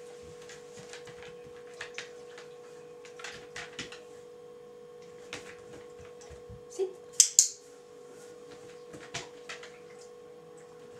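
A dog's claws ticking and tapping on a hard kitchen floor as it shifts from lying down to sitting and standing, with two sharp clicks close together about seven seconds in, over a steady high hum.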